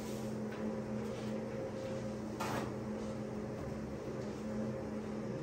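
A steady low electrical or machine hum, with faint rubbing and one brief soft knock about two and a half seconds in from gloved hands working at the end of a rocket motor casing.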